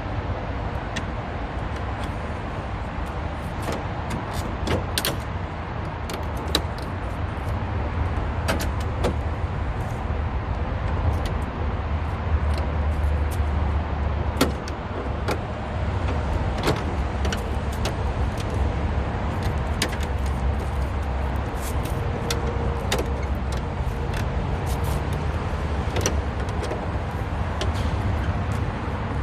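Scattered sharp clicks and knocks of hand work on a car's front end, over a steady low rumble.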